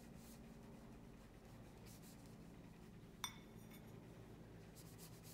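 Faint scratching of a water brush pen on paper, then about three seconds in a single light clink as the brush taps a ceramic plate, ringing briefly, followed by faint strokes of the brush on the plate.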